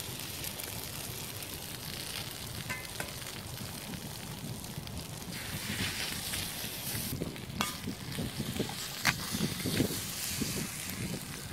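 Eggs frying in a cast-iron skillet over campfire embers: a steady sizzle, with a few sharp cracks as eggs are broken into the pan.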